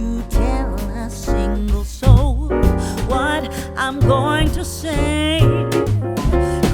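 Background song: a singer with vibrato over piano and a steady bass beat.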